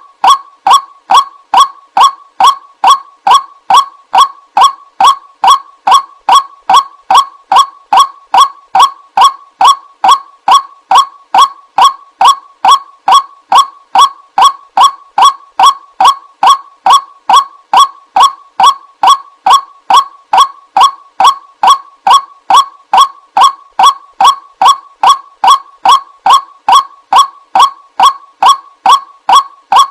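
White-breasted waterhen calling: short, loud, honking 'kwak' notes repeated evenly at about two a second, with no break. It is the ruak-ruak call used as a lure to draw the birds in.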